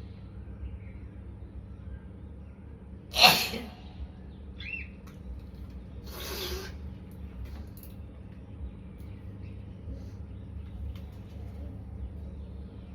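A person sneezing once, loud and sudden, about three seconds in, followed by a softer breathy burst a few seconds later, over a steady low hum.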